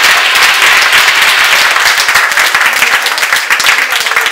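Audience applauding: dense clapping from many hands, beginning to thin out near the end.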